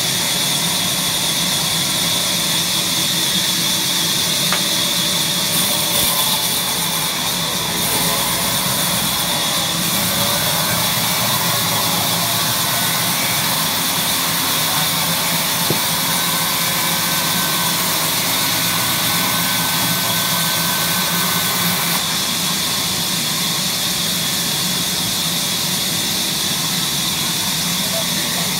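A large electric band saw running steadily, belt-driven by its motor, its blade cutting lengthwise through a log.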